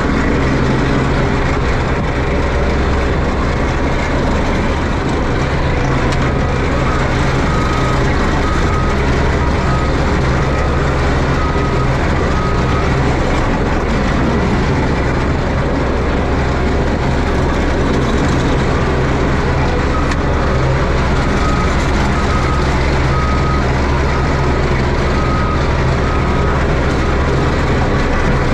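Excavator's diesel engine running steadily under load as it packs backfill dirt with a compaction wheel. A backup alarm beeps in spells of short repeated beeps, starting about six seconds in, again around eleven seconds and for several seconds past the twenty-second mark.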